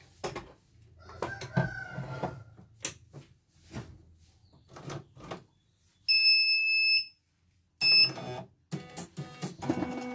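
CNY computerized embroidery machine being handled, with scattered clicks and knocks, then a loud electronic beep about six seconds in lasting about a second and a second short beep near eight seconds as it powers on. Near the end its motors start with a steady whirring hum.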